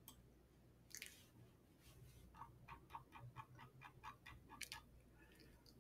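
Near silence, broken by a faint click about a second in and then a run of about a dozen quick, evenly spaced faint ticks, about five a second, from a computer mouse's scroll wheel being turned.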